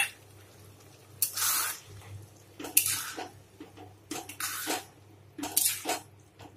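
Metal spatula stirring a thin, watery sauce in a wok: a sharp clink at the start, then scraping and sloshing strokes about every second and a half.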